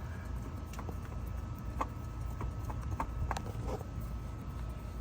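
Scattered light knocks and clicks, about eight at uneven intervals, from hand work with parts and tools under a car during an oil change, over a steady low rumble.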